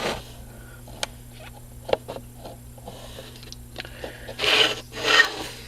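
Small clicks and light scraping from hands fitting a wire back onto a spring terminal of a small battery-powered alarm, over a steady low hum. Two short hissy rustles come near the end.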